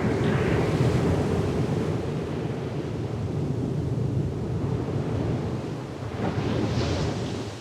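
Sea waves on the shore: a steady low rumble of surf, with one wave breaking at the start and another about six seconds in.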